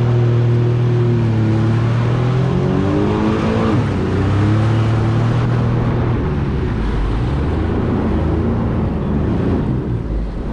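Sea-Doo jet ski engine running under throttle. Its note rises about three seconds in, drops sharply just before four seconds, then settles lower and rougher after about six seconds as the craft slows.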